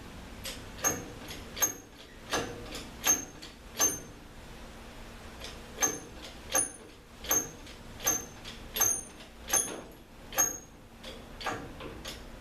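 Sharp metallic clicks, each with a brief high ring, coming irregularly about one or two a second with a short pause midway, over a faint steady hum.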